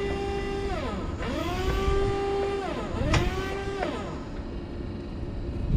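CAT Mitsubishi FBC18N electric forklift's hydraulic pump motor whining as the side shift is worked. The whine rises to a steady pitch and winds down three times: the first run ends under a second in, the next starts about a second in, and a shorter one starts about three seconds in.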